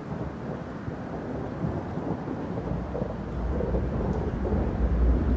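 A low, thunder-like rumble swelling up from about two and a half seconds in, over a steady rushing noise.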